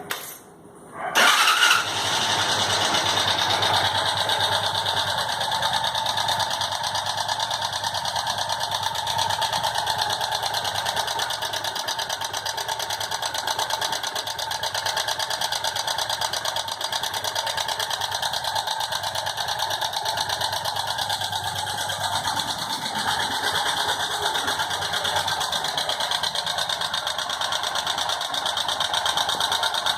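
Dafra Speed motorcycle's single-cylinder engine starting about a second in, then running steadily at idle with a strange engine noise that persists even though the valves have been adjusted and the bike is not smoking.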